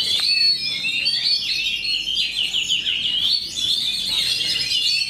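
Oriental magpie-robins (kacer) singing, a dense, continuous stream of rapid overlapping chirps, whistles and trills from more than one bird.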